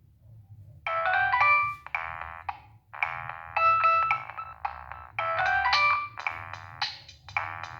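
Nokia 6585i mobile phone playing a polyphonic ringtone through its small loudspeaker: a short melodic phrase starts about a second in and repeats roughly every two seconds.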